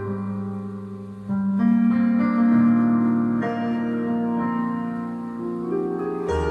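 Electronic keyboard playing slow, sustained chords over a held bass note, moving to a new chord about a second in and again near the end.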